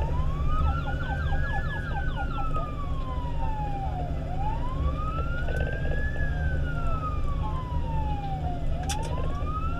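Fire engine siren in a slow wail. It rises over about a second and a half and falls over about two and a half seconds, repeating about every four and a half seconds, over the steady low rumble of the truck's engine and road noise.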